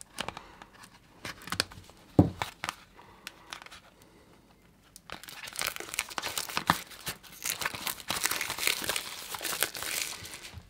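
Clear plastic shrink-wrap being torn and peeled off a small cardboard motor box, crinkling and crackling continuously through the second half. Before that there are scattered light clicks and scrapes as a small tool picks at the wrap's seal.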